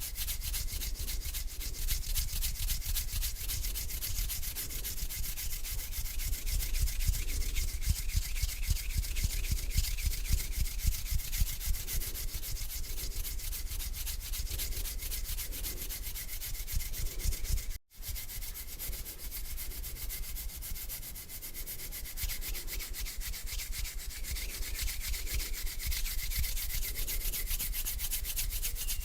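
Two hands rubbing together close to the microphone: a continuous dry skin-on-skin friction in slow, even strokes. The sound cuts out for an instant about two thirds of the way through.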